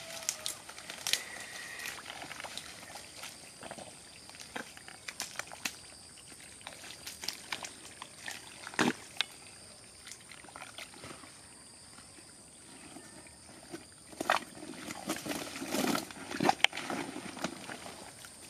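Twigs and leaves crackling and snapping as branches are pushed aside, with scattered sharp clicks. In the last few seconds, wet mud squelches and sloshes as hands dig into a flooded mud hole.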